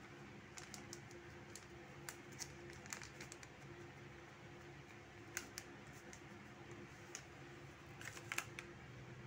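Faint scattered clicks and crinkles of a plastic spice packet being shaken as chili powder pours out, with the loudest cluster near the end, over a faint steady low hum.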